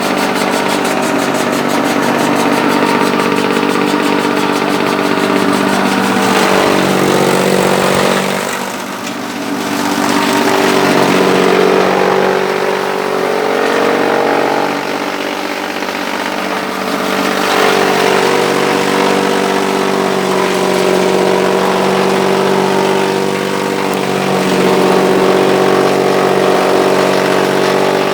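APEW Hurricane high-speed chaff cutter (silage chopper) running with a steady machine hum. Its pitch and loudness sag around nine seconds and again around fifteen, then pick back up.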